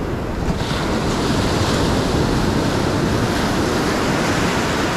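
Ocean surf breaking and washing up the beach, a steady rushing that swells about half a second in, with wind buffeting the microphone.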